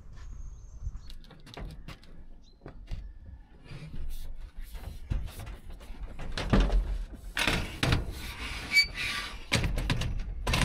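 Solar panel being manoeuvred into place on a steep metal roof: irregular knocks, thuds and scraping as the panel frame meets the roof sheeting and mounting rails, busiest and loudest in the second half.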